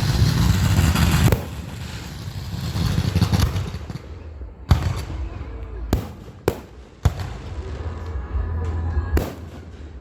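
Fireworks: a loud crackling hiss for about the first second, then a string of sharp single bangs a second or so apart.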